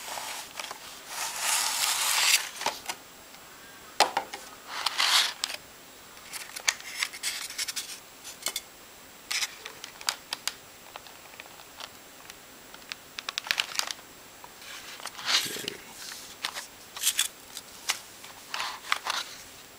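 Stiff clear plastic clamshell packaging being slid apart and handled, crinkling and rustling with sharp clicks in irregular bursts.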